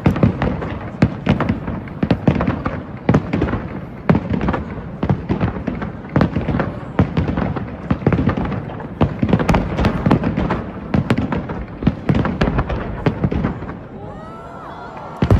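Fireworks display: a dense, irregular barrage of bangs and crackling shell bursts, easing off briefly near the end.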